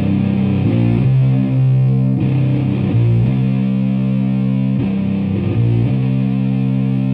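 Music: a distorted electric guitar holding low notes that change every second or so, settling on one sustained chord near the end.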